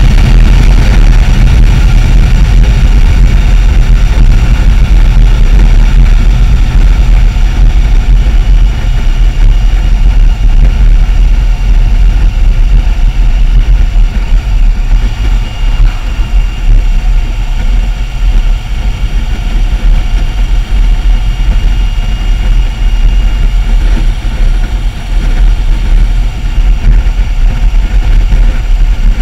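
Motorcycle riding at steady road speed: engine running under a heavy, continuous low rumble of wind on the microphone.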